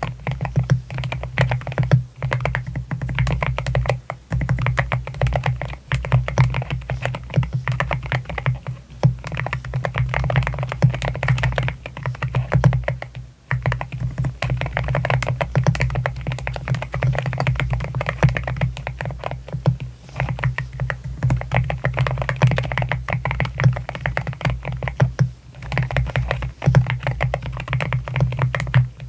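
Typing on an AKKO MU01 wooden-cased mechanical keyboard with Rosewood linear switches: rapid, continuous keystrokes broken by a few brief pauses.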